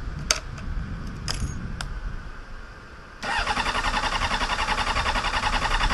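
A few light clicks, then a motorcycle's electric starter cranking the engine strongly and evenly for about three seconds without it catching, before it cuts off. The brisk cranking on a new battery shows the battery and starter are working, but the engine will not fire; the cause is unknown.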